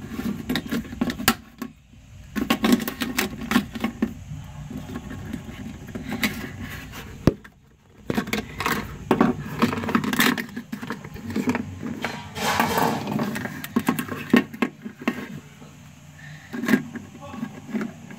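Small plastic toys, a Littlest Pet Shop pet carrier and toy bed, being handled and set down: irregular clicks, taps and light scrapes of plastic.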